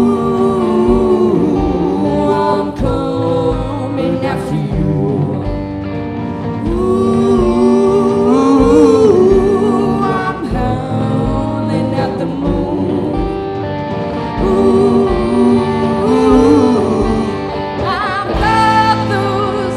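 Live blues-rock band playing: electric guitars, bass guitar and drums with a steady beat, and a bending lead melody over the top.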